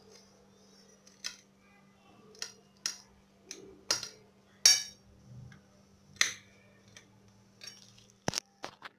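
Knife cutting a potato pancake on a plate: scattered sharp clicks and short scrapes of the blade against the plate, about ten in all, the loudest a little under five seconds in, over a faint steady hum.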